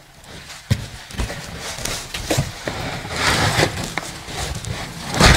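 Parts of a 3D printer being lifted out of a cardboard shipping box: scattered knocks and clunks with a stretch of rustling packaging in the middle, the loudest thump near the end.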